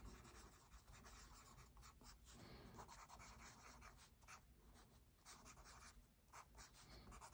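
Faint scratching of a pen writing on notebook paper, in short irregular strokes.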